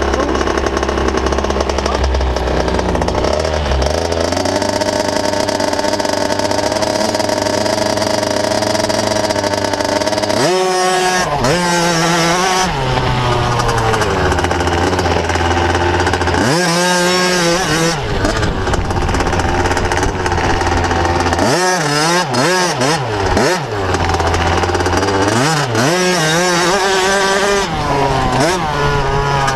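Motocross bike engine close up: a steady running note for the first ten seconds or so, then the revs climb and drop back several times as the bike rides off down the track.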